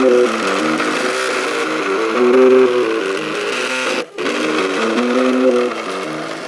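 MakerBot 3D printer's stepper motors whining as the print head moves, the pitch jumping between a few notes with each change of speed and direction, over a steady fan hiss. The sound cuts out briefly about four seconds in.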